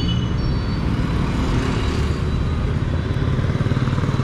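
Street traffic noise: a steady rumble of vehicles, with an engine running close by.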